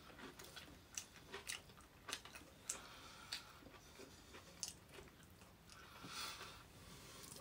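Faint chewing and biting of food, a string of short irregular mouth clicks, with a slightly longer crunchy bite about six seconds in.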